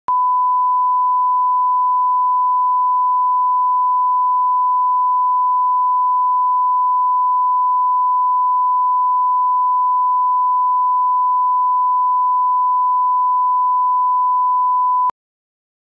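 Steady 1 kHz sine-wave test tone, a single pure pitch held unchanged for about fifteen seconds and cutting off suddenly near the end: the line-up tone at the head of a video master, used for setting audio levels.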